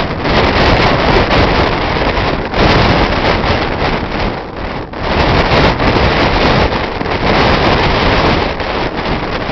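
Strong wind buffeting the microphone: a loud rushing noise that rises and falls in gusts.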